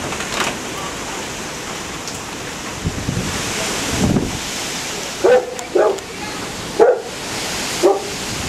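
A dog barking: four short barks in the second half, over a steady windy hiss.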